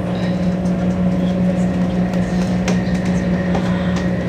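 Steady running noise inside a moving electric train carriage, with a constant low hum over the rumble. A single sharp click comes about two and a half seconds in.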